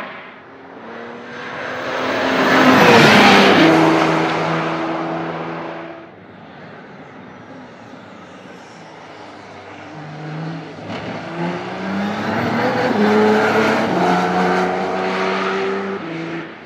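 Audi R18 e-tron quattro Le Mans prototype, a V6 turbodiesel hybrid racing car, passing close about three seconds in with its engine note dropping in pitch as it slows. From about ten seconds it accelerates hard again, the pitch climbing in steps through upshifts, then fades near the end.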